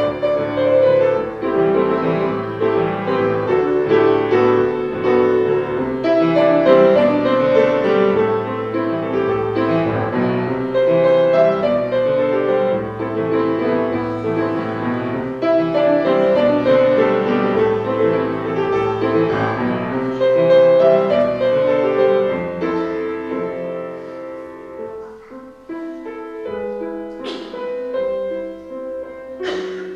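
Piano music, a classical-style piece of shifting chords and melody, which grows softer about three-quarters of the way through.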